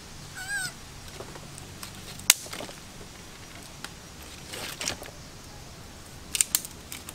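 A domestic cat meows once, a short wavering call about half a second in. Then come several sharp knocks of a knife cutting and trimming dry kindling sticks, the loudest about two seconds in and a quick pair near the end.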